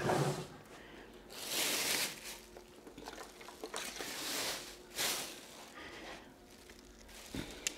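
Clear plastic bag crinkling and rustling as it is pulled off an electric unicycle, in two longer stretches, about a second and a half in and again about four seconds in, with small handling clicks between.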